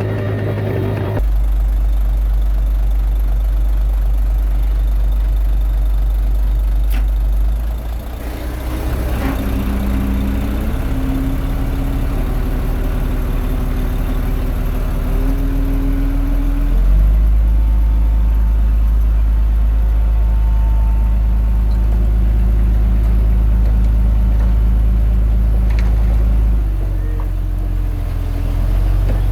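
Komatsu D21A bulldozer's diesel engine running under load as it works soil. The engine note drops about eight seconds in and comes back up strongly about halfway through, easing again near the end.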